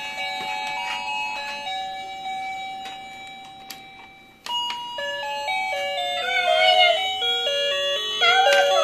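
Toy dollhouse's electronic doorbell tune: a simple melody of steady beeping notes that fades almost to nothing, then starts over sharply about four and a half seconds in when the door button is pressed.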